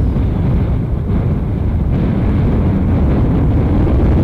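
KC-135R Stratotanker turbofan engines in flight overhead, a steady low rumble.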